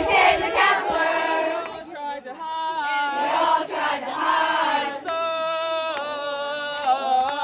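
A group of campers singing a camp song together, held sung notes.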